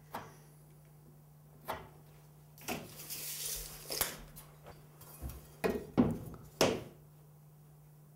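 Scattered knocks and clatters of drywall tools being handled, a tape measure and an aluminium drywall T-square, as the square is set against a sheet of drywall. A short rustle comes in the middle, and the two loudest knocks come about six seconds in.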